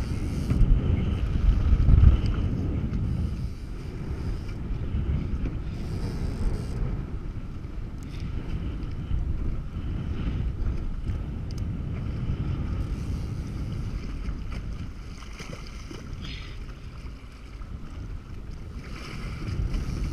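Wind buffeting the microphone on a boat at sea, an uneven low rumble, with the hiss of choppy water around the hull. It is gustier and louder in the first few seconds.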